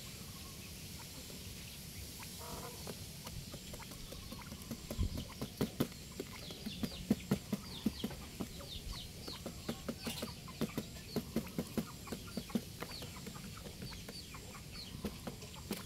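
Quails pecking grain off cardboard and bare ground: a quick, irregular run of light taps that picks up about five seconds in, mixed with many brief, high chirps falling in pitch.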